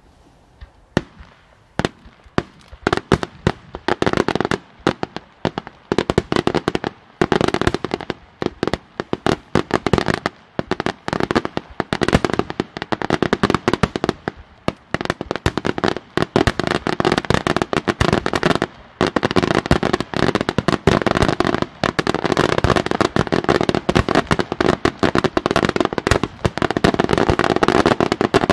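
Aerial fireworks display: shells bursting one after another, scattered for the first couple of seconds and then building into a dense, almost continuous barrage of bangs.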